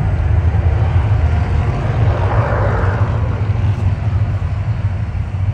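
Deep, steady rumbling from the Mirage volcano show's effects, with a rushing swell about two seconds in, as the eruption winds down.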